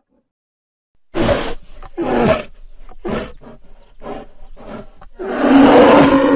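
Grizzly bear roaring in a run of short calls starting about a second in, ending with a longer, louder roar near the end.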